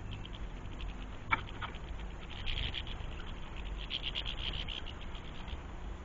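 Goldfinches twittering: fast, high, tinkling chatter in two bursts, about two and four seconds in. A single sharp click comes a little after one second, over a steady low background rumble.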